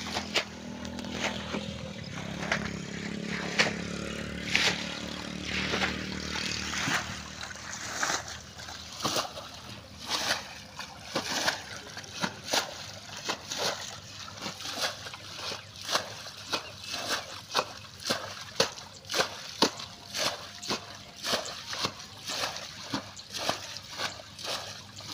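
Muddy floodwater being scooped with shallow pans and flung over an earth bank, a quick run of repeated splashes about two a second, as a flooded plot is bailed by hand. A low steady hum fills the first several seconds before the splashing starts.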